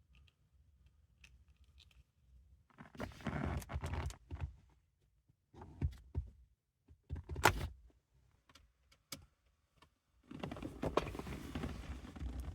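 Parts and tools being handled, in four bursts of rustling and clatter with a few sharp clicks between.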